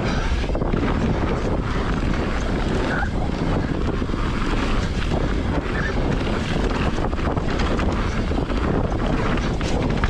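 Wind rushing over an action camera's microphone while a mountain bike rolls downhill over a rough dirt trail, with its tyres rumbling and frequent small knocks and rattles from the bike.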